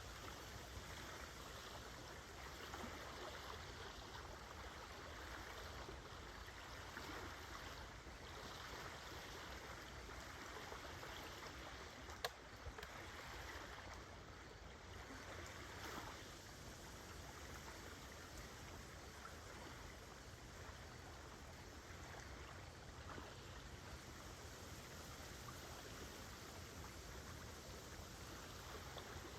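Small lake waves lapping gently at the shore, a faint steady wash that rises and falls softly every few seconds. A single sharp click about twelve seconds in.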